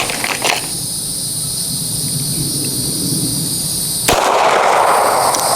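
Insects buzzing steadily in a high, even drone. About four seconds in there is a single sharp crack, followed by a louder rushing noise.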